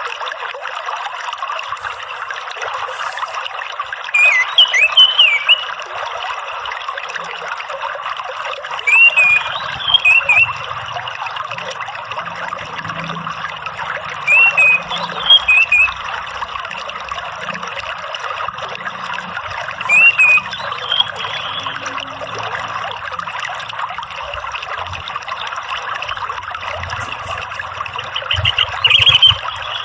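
Orange-headed thrush singing short whistled phrases about every five seconds, five in all, over a steady trickle of running water.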